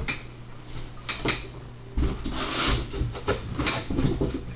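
Cardboard boxes being handled, sealed hobby boxes taken out of a case: a couple of sharp clicks, then rustling, scraping and low knocks from about two seconds in.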